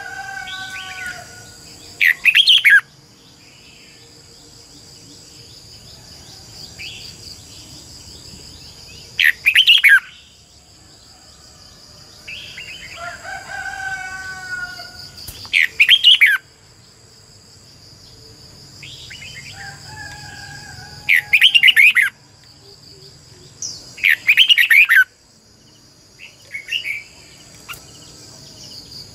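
Red-whiskered bulbul singing: about five short, loud, bright phrases a few seconds apart, with softer, lower warbled notes between them. A steady high-pitched drone runs underneath.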